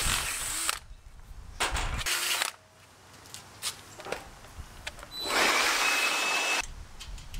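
Cordless drill boring down into the trailer's steel mesh deck in three short runs, to bolt down a motorcycle wheel chock. The last run is the longest, and its whine rises in pitch.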